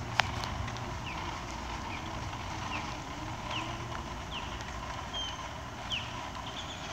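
Small wheels rolling on asphalt from a self-balancing hoverboard and RipStik caster boards: a steady low rumble. There is one sharp click just after the start, and a few short, falling chirps scattered through.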